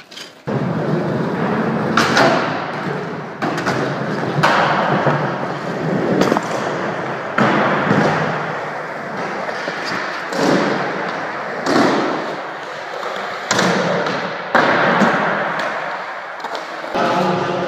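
Skateboards rolling on skatepark ramps, with a hard board thud or slam every second or two from landings and tricks.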